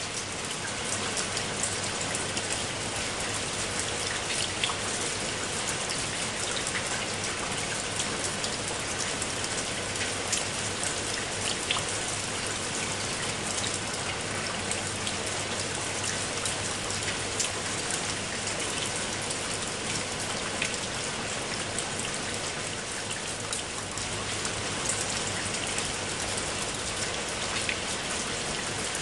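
Steady heavy rain, a dense hiss with many individual drops ticking close by; no thunder.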